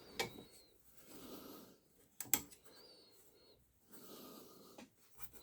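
Quiet handling noise: a few light clicks, with faint breaths about one second and four seconds in.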